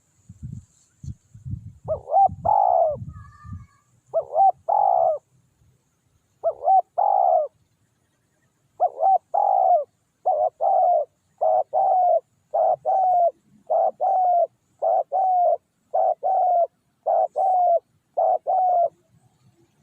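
Spotted doves cooing. A few spaced calls come first, then a steady run of short paired coos from about nine seconds in. A few low knocks sound at the start.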